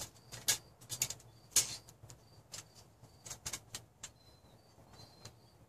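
Quiet handling sounds: a scatter of short clicks, taps and rustles as a small stainless-steel wood-burning camp stove is lifted and held up, the sharpest about half a second and a second and a half in.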